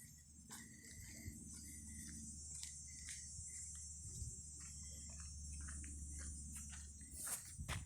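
Outdoor nature ambience: a steady high-pitched insect chorus, with short chirps and scattered clicks over a low rumble. A few louder knocks come near the end.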